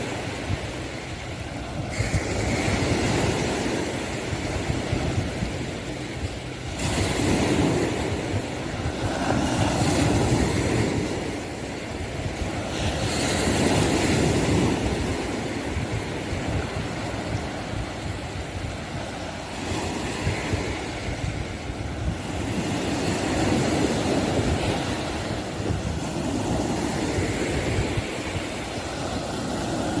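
Sea waves breaking and washing up the beach, the surf swelling and falling away every few seconds over a steady low rumble.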